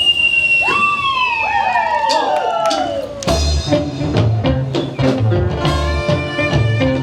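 Live pirate band music: a long held high note and swooping downward slides, then from about three seconds in a rhythmic tune with a steady drum beat.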